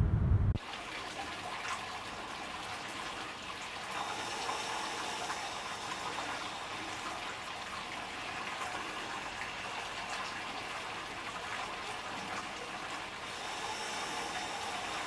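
Water running steadily from a tap, filling a bath or pool, a continuous rushing noise that swells slightly a few seconds in and again near the end.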